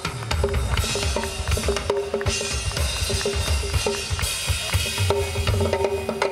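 Live drum kit solo: fast strokes on toms and snare over bass drum, with cymbals ringing out twice, about two and four seconds in.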